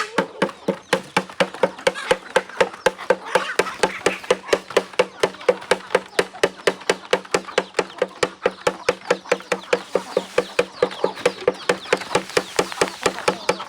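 Rapid, steady tapping, about four to five knocks a second, with faint bird calls behind it.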